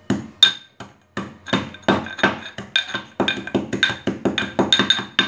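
Steel pestle pounding sugar and cardamom in a steel mortar, grinding them to powder: a fast, even run of ringing metallic strikes, about four a second.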